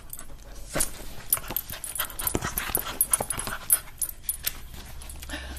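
A small dog fidgeting in a person's lap: irregular clicks and rustling as it shifts about.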